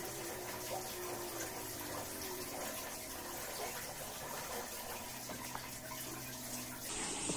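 Hands digging through the potting medium of a potted monstera to expose its roots: a steady rustling, gritty scraping with many small crackles.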